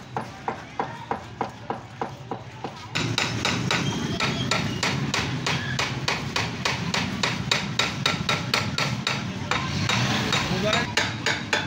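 Hammer tapping repeatedly on a vertical metal earthing pipe, a steady train of sharp metallic strikes several times a second, which becomes faster and louder about three seconds in.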